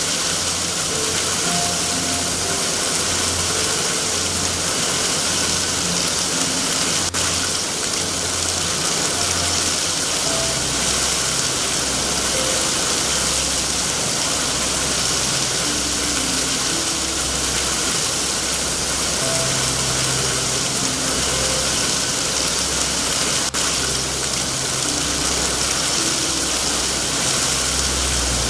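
Steady rain, an even hiss, with a low rumble underneath.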